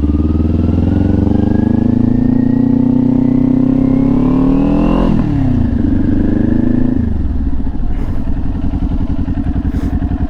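Kawasaki Ninja 400's parallel-twin engine through an aftermarket LeoVince slip-on exhaust, accelerating under load. The pitch climbs for about five seconds, drops sharply at a shift, climbs again briefly, then drops and settles lower. The bike sounds much louder than on its stock exhaust.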